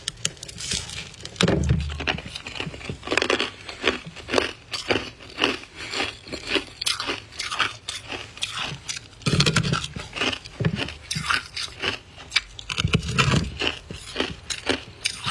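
Close-up biting and chewing of soft white ice: a dense, fast run of crisp crunches, several a second, with a few heavier, deeper crunches among them.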